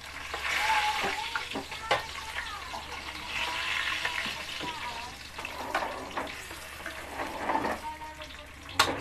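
Fried tilapia pieces sizzling in hot oil in a steel wok, with a metal spatula clicking and scraping against the pan as the pieces are lifted out. A sharp metallic knock comes near the end.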